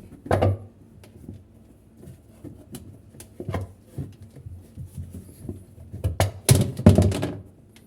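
A shoelace pulled back and forth through a washing machine's clogged drain area, rubbing and scraping against the parts, with handling knocks. The loudest strokes come about half a second in and again around six to seven seconds in.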